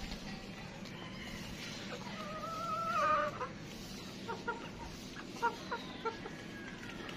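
Splash Australorp chickens clucking: a loud, drawn-out wavering call a couple of seconds in, then a string of short clucks.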